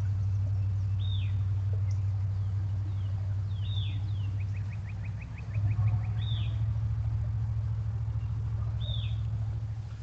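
A steady low motor hum runs loudest throughout, swells slightly about halfway and stops at the very end. Over it a bird gives a short down-slurred call four times, evenly spaced, and a quick trill of about a dozen notes sounds just before the middle.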